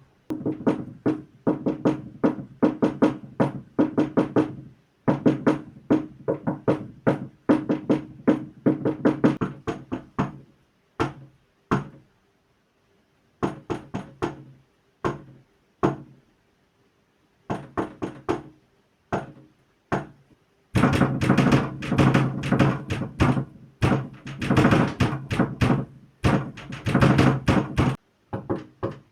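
Fast rhythmic knocking played like drumming: quick runs and fills of strokes on a hollow, low-ringing surface, broken by short pauses. It is busiest and loudest from about two-thirds of the way in to near the end.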